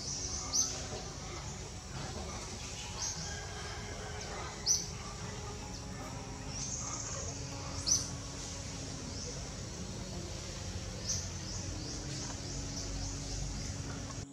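Forest ambience: short, high-pitched bird chirps every few seconds, a few standing out louder, over a steady background noise.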